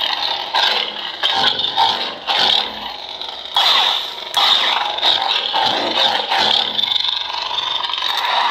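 Lightsaber sound font playing from a Proffieboard V2 through the hilt's 28 mm speaker: a steady buzzing hum that swells and falls again and again as the blade is swung.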